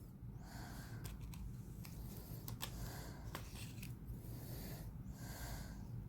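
Faint breathing through the nose, with a few light, sharp clicks as small steel lock picks are handled.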